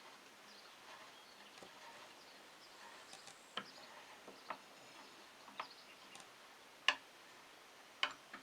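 Faint outdoor background with a few separate sharp clicks or taps, roughly a second apart, the loudest two near the end.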